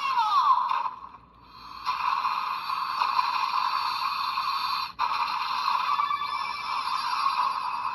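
Synthesized electronic sound effects playing from a PREMIUM DX Memorial Gotcha Igniter toy's speaker. The sound fades out about a second in, comes back abruptly a second later and breaks off sharply for an instant about five seconds in.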